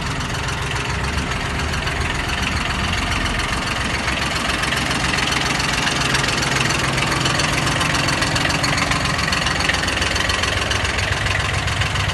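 Kubota B1402DT mini tractor's three-cylinder diesel engine idling steadily.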